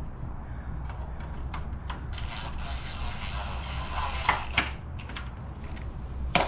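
DeWalt cordless driver running for a couple of seconds, from about two seconds in, to drive a small screw into the grille's sensor bracket, with two sharp clicks as it finishes. A louder knock comes near the end.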